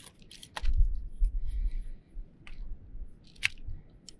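Plastic camping cot foot pieces being handled, giving several sharp clicks and rattles, the loudest about three and a half seconds in, with a low rumble between about half a second and two seconds in.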